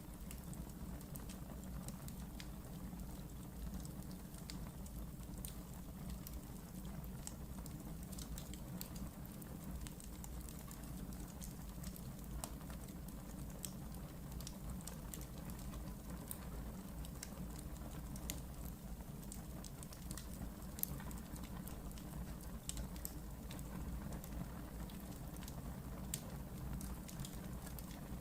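Wood fire burning in a fireplace, crackling with frequent small irregular pops over a steady low rumble of the flames.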